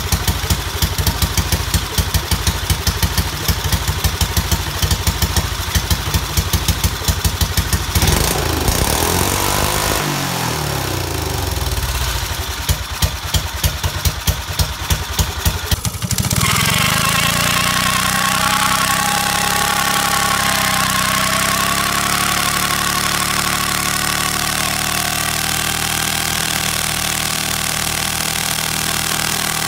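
Minibike's Briggs & Stratton flathead engine running after a valve grind, first with fast, even firing, then changing speed and slowing to spaced beats. About 16 s in it switches abruptly to the engine held at steady high speed during a burnout.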